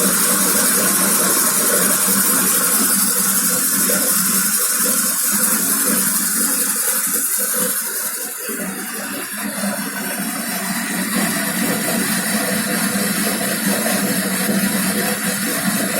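Homemade metal lathe running under power feed, the tool cutting metal with a steady hiss over a low hum; it eases off a little about eight seconds in.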